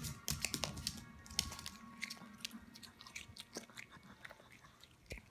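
Small dog chewing and crunching a piece of food: a quick run of crunches in the first second and a half, then slower, scattered chews.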